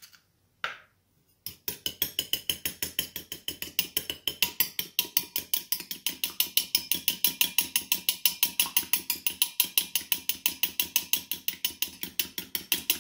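A metal spoon beating a raw egg in a glass mixing bowl, clinking against the bowl in rapid, even strokes, about seven a second. Two brief knocks come just before the beating starts.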